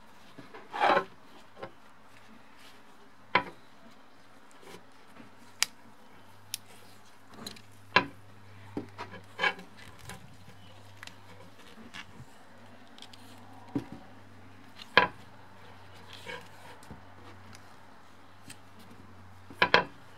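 Handling noises as pieces of bicycle inner tube are worked over tyre irons: scattered sharp clicks and knocks with short bouts of rubbing, over a steady low hum.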